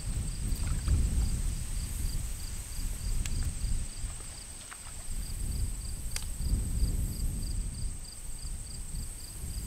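Wind buffeting the microphone, with insects chirping steadily behind it: a constant high whine and a pulsing chirp about three times a second.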